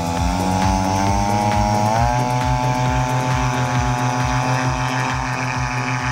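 Paramotor's two-stroke engine and propeller running hard for a takeoff run, its pitch rising about two seconds in as the throttle opens, then holding steady.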